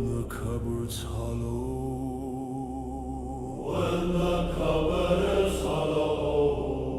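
Low chanting voices holding long notes over a steady drone, a swell of further voices joining about four seconds in.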